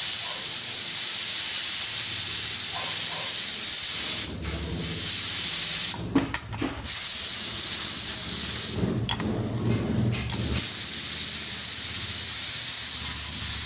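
Pressure cooker venting steam through its weight valve, a loud high hiss as the pressure is partly released after cooking. The hiss falters and weakens three times, about four, six and nine seconds in.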